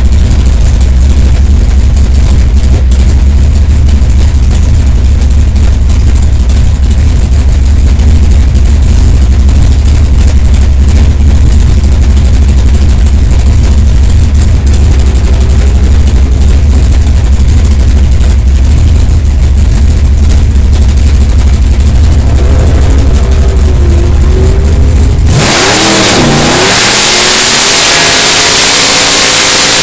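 Drag race car's engine running steadily at a very loud, deep idle, heard from inside the cockpit. About 25 seconds in the sound changes abruptly into revving, its pitch sweeping up and down.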